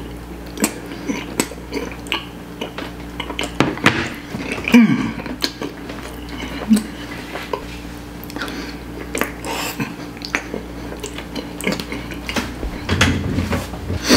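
Eating sounds: a metal fork clicking and scraping against a plastic takeout tray, with chewing of a mouthful of lamb saag, in many short irregular clicks over a steady low hum.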